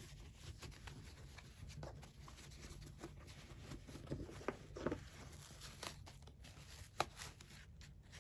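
Rickshaw Bagworks fabric pen roll being rolled up by hand: faint rustling of the fabric with a few soft clicks and taps, the sharpest about seven seconds in.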